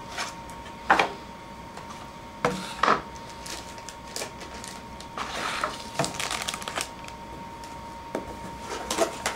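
Cardboard packaging of a laptop box being handled and opened: a handful of sharp knocks and taps with a longer rustle about midway, over a faint steady whine.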